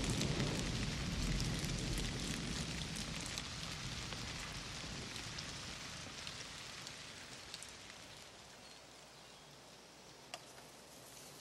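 Rain pouring down, a steady hiss with a low rumble underneath, slowly fading away; one sharp tap about ten seconds in.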